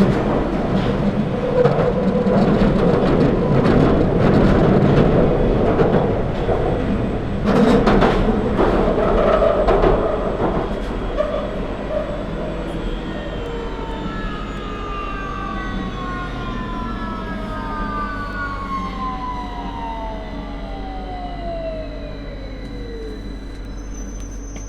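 London Underground 2009 Stock train running with a loud rumble and a couple of sharp knocks from the track, then its traction motors whining in several parallel tones that fall steadily in pitch as the train brakes to a stop.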